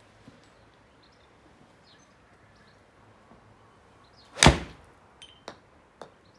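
A 7-iron strikes a golf ball off a hitting mat: one sharp, loud crack about four and a half seconds in, after a quiet set-up, followed by a few faint taps.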